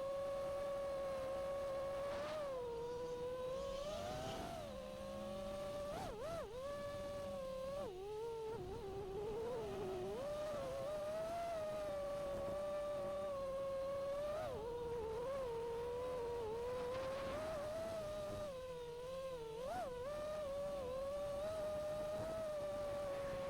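FPV racing quadcopter's brushless motors (T-Motor Velox V2207 2550KV) spinning 5-inch props, giving a steady high whine. Its pitch dips and swoops back up several times as the throttle is eased and punched.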